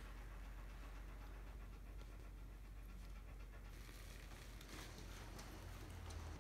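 A dog panting faintly over a steady low hum.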